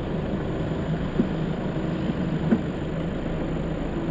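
4x4 SUV engine running steadily while towing through soft sand, with two faint knocks about one and two and a half seconds in.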